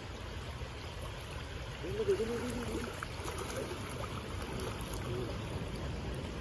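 Shallow stream water running steadily, with a brief faint wavering voice-like sound about two seconds in.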